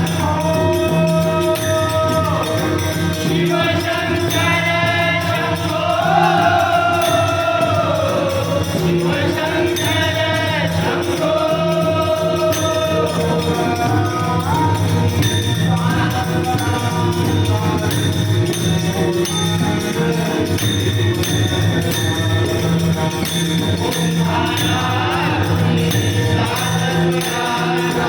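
Marathi bhajan group singing a gajar, a devotional chanted refrain, in chorus over steady rhythmic percussion with a jingling metallic sound.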